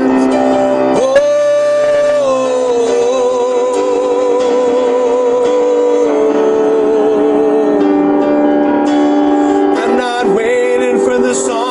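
A man singing a slow worship song over instrumental accompaniment, holding long notes with vibrato.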